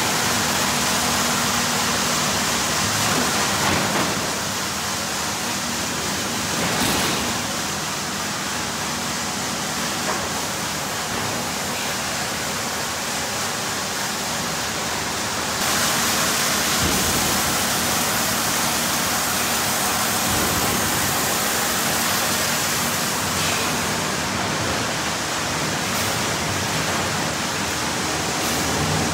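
Sawmill machinery running: a steady, dense mechanical noise with a faint hum underneath, easing off slightly about four seconds in and rising again a little past halfway.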